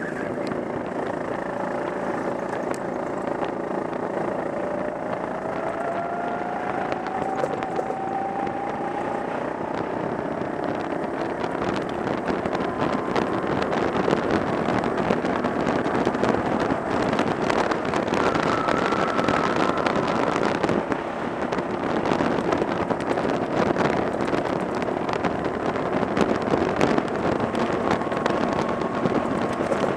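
Go-kart engine running hard under the driver's seat as the kart laps the track, its pitch climbing as it accelerates out of a corner a few seconds in, with other karts' engines faintly behind.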